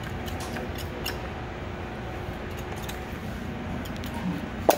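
A boning knife scraping and cutting meat from a raw chicken's bones: faint, small wet scrapes and clicks over a steady low hum, with one sharp knock near the end.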